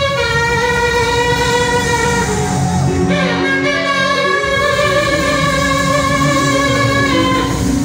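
Hair comb played by mouth into a microphone like a trumpet or trombone, with a buzzing, horn-like tone: long held melody notes that move to a new pitch every second or two, over loud backing music.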